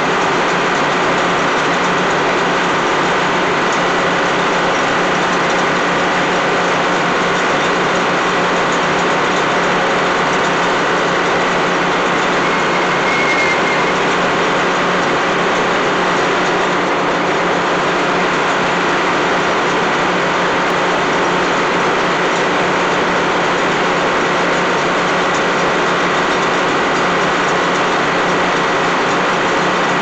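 Old Meadows circular sawmill running steadily: the power unit and the spinning head saw blade make a loud, even drone with no change in pitch.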